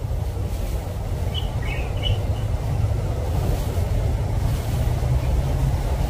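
Steady low rumble with a few short, high bird chirps about one and a half to two and a half seconds in.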